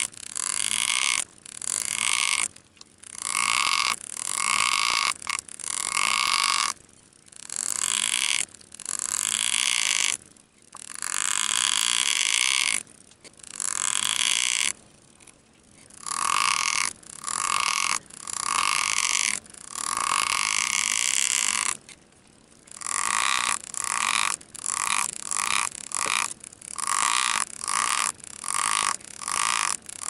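Pneumatic engraving handpiece buzzing in repeated bursts, each a second or two long with brief pauses between, as the graver cuts into a titanium knife handle. The bursts grow shorter and quicker near the end.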